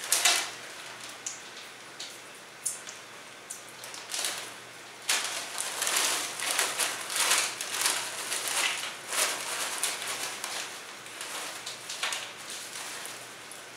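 A foil chip bag of Doritos crinkling and rustling as a hand rummages inside it: a few sharp clicks in the first seconds, then dense crackling from about five seconds in, swelling and easing.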